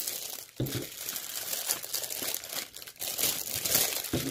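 Plastic packaging crinkling irregularly as the contents of a diamond painting kit are handled and sorted.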